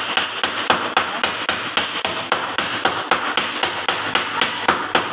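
Several knives and cleavers chopping meat and offal on wooden log chopping blocks, more than one person at once. The strikes come fast and uneven, several a second, with no pause.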